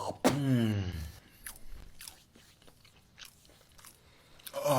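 Close-miked mukbang eating: a string of sharp, wet biting and chewing crunches. A drawn-out vocal sound falling in pitch comes just after the start and again near the end, and it is louder than the chewing.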